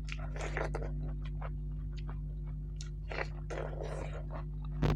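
Close-miked chewing and biting of crisp food in irregular crunchy strokes, with one sharp click near the end.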